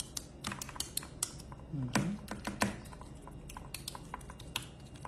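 Fingers patting and pressing seasoning into raw rib-eye steaks on a plastic tray: an irregular run of small, quick wet taps and clicks.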